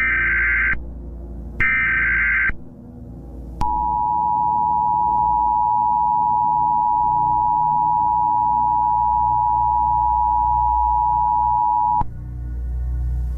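Emergency Alert System signalling: the last two of three short, screeching digital header bursts, then about a second later the steady two-tone EAS attention signal, held for about eight seconds before it cuts off, all over a low background drone.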